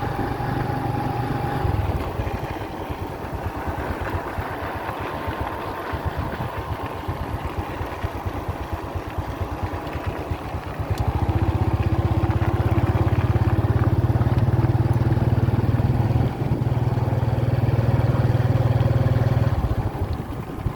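Strong wind buffeting the microphone in a loud low rumble that swells about halfway through. Over it, a few steady humming tones of bamboo kite flutes carry on the wind.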